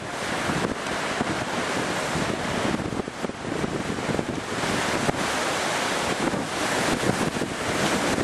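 Strong wind buffeting the microphone over a rough sea, with waves washing and breaking: a dense, steady rush of noise that swells and dips with the gusts.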